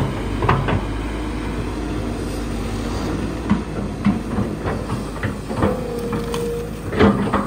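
SANY SY200C hydraulic excavator working under load: steady diesel engine and hydraulic pump drone, with scattered knocks and clanks as the bucket bites into soil and stumps. A higher hydraulic whine comes in for about a second near six seconds in.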